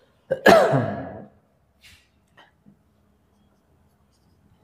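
A man's short voiced sigh, falling in pitch, about half a second in, followed by a few faint short scratches of a marker on a whiteboard.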